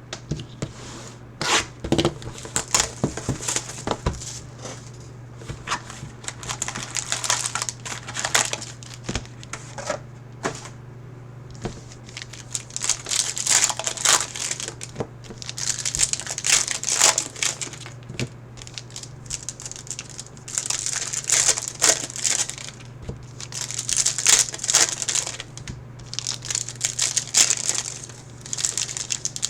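Plastic wrapping on a box of trading cards and its card packs being torn open and crinkled by hand, in repeated bursts of rustling with small clicks. A steady low hum runs beneath.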